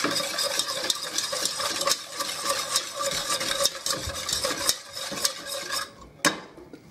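Wire whisk beating a thin milk mixture in a stainless steel saucepan, the wires clicking rapidly against the pan. The whisking stops near the end, followed by a couple of sharp knocks.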